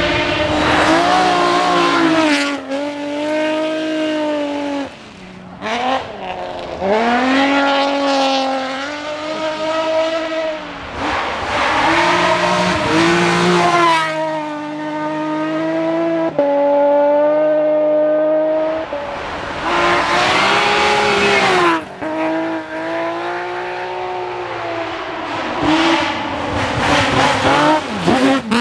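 BMW rally cars at full throttle on a closed stage, one after another: each engine revs hard, its pitch climbing and dropping back through the gear changes. The sound changes abruptly several times as one car gives way to the next.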